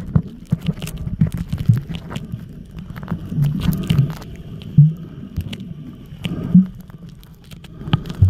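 Muffled underwater sound through a waterproof camera housing: irregular clicks and dull knocks over a low rumble of moving water.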